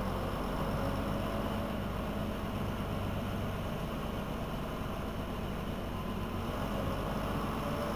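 Diesel engine of a 1978 Berliet PR100 MI city bus (MIPS engine) idling steadily, with a faint whine that slowly rises in pitch.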